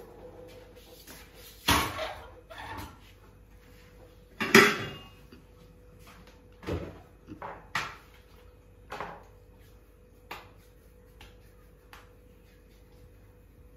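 Kitchen utensils and vessels being handled on a countertop: about eight separate knocks and clanks, spread out, the loudest about four and a half seconds in, over a faint steady hum.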